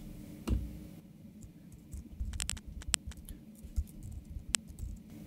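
Computer keyboard keystrokes and clicks: a quick cluster of sharp clicks around the middle, then single ones a little later and near the end, with a soft low thump about half a second in.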